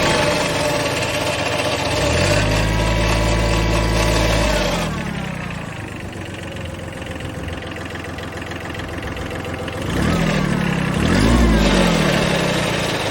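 Kubota B7100 HST compact tractor's three-cylinder diesel engine running with a rattle, revved up and let back down twice, with a lower steady speed in between.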